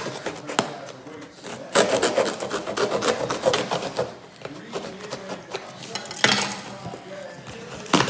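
Packaging being handled and opened by hand: rubbing and scraping. There are a few sharp clicks near the start, a dense stretch of scraping in the middle, and a short louder rustle about six seconds in.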